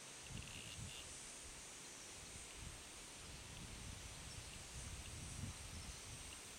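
Faint outdoor river ambience: wind buffeting the microphone in irregular low gusts over a steady high hiss, with a few faint high chirps about half a second in.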